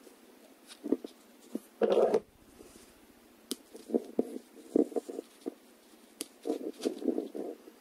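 Hands handling fishing line over a fabric mat: irregular rustling, brushing and small clicks, with one louder brush about two seconds in and a run of rubbing sounds in the second half.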